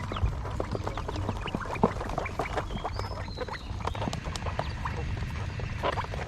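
A flock of farmed quail: many quick, irregular taps and clicks, with a few short high chirps about three seconds in, over a steady low hum.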